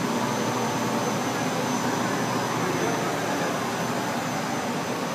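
A three-layer film blowing machine running: a steady, even machine noise from its extruders, drive motors and air blowers, with a faint high steady whine.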